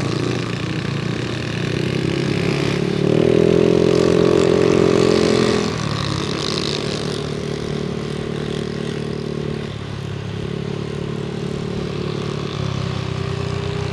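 Yamaha NMAX 155 scooter's single-cylinder engine running under way. From about three to six seconds in it is louder and its note steps up, then it settles back to a lower, steadier note.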